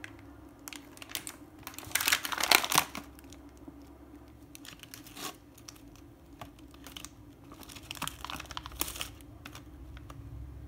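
Metallised plastic biscuit wrapper and clear plastic tray crinkling as the tray is slid out and handled. There is a loud burst about two seconds in, and lighter crinkles and clicks around five and eight to nine seconds.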